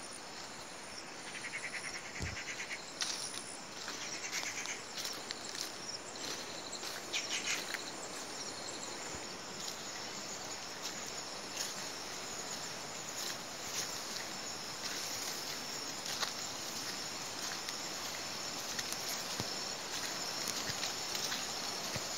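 Steady chorus of insects chirring, with a short pulsed call about a second in and another about four seconds in. Occasional soft footsteps sound on a dirt path.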